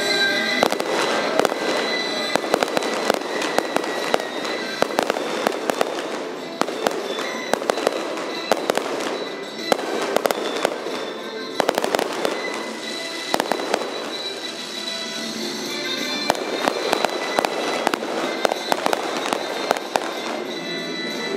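Aerial fireworks shells bursting in a rapid, continuous series of sharp bangs and pops, with music playing underneath.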